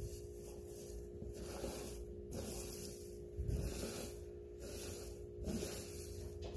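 Rustling and scraping of loose coco husk substrate as a hand digs through a lizard enclosure, in uneven surges about once a second, over a steady low electrical hum.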